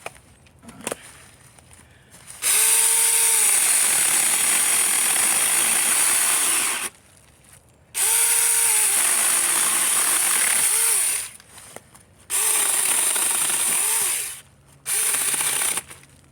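24-volt cordless mini chainsaw with a 6-inch chain cutting wood in four bursts, the first two about four seconds each and the last one short, with pauses between. Each burst opens with a short motor whine under the hiss of the chain.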